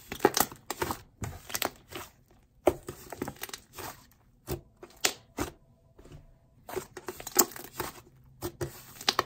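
Soft, fluffy white clay slime being squished and pressed by hand, giving irregular sticky crackles and small pops.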